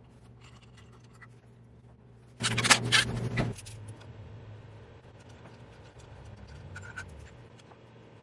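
Hand tools working on the Avid CNC's Y-axis drive motor bracket: small metallic clicks and scrapes, with a louder scraping rattle about two and a half seconds in that lasts about a second. A low steady hum runs underneath.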